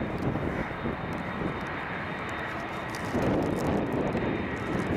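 Boeing 747 jet engines at takeoff power as the airliner climbs out: a steady, low, rumbling rush of jet noise. It eases slightly, then swells again about three seconds in.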